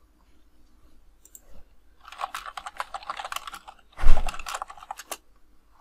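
Typing on a computer keyboard: a quick run of keystrokes, then a single heavier key strike or desk knock about four seconds in, followed by a few last keystrokes.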